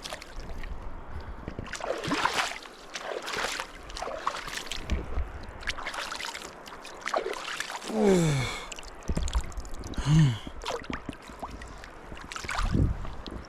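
Water splashing and sloshing in a string of separate bursts, as of feet or hands moving in shallow river water. About halfway through there are two short vocal exclamations, each falling in pitch.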